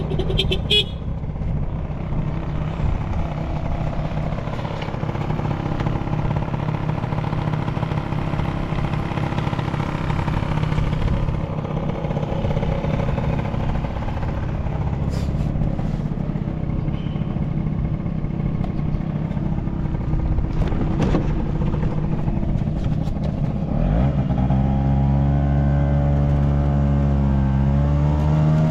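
Honda Cabina 50 scooter's two-stroke engine running, at first mixed with a rushing haze of road and wind noise; from about 24 seconds in it settles into a steady, even hum that rises in pitch briefly near the end as the throttle opens. It runs smoothly with no abnormal noise and revs up cleanly.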